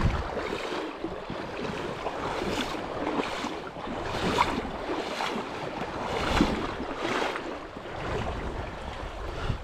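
Shallow river current running over stones, a steady rushing hiss, with wind gusting on the microphone in low rumbles.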